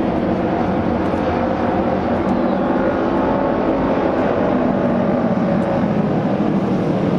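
Several Japanese auto race motorcycles with 600 cc twin-cylinder engines running at race speed around an asphalt oval. The engines make a steady, loud sound without a break.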